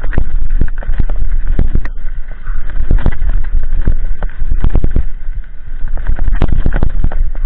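Kona Process mountain bike clattering down a rocky gravel trail: many sharp, irregular knocks and rattles as the wheels hit stones. Heavy wind buffets the camera microphone throughout.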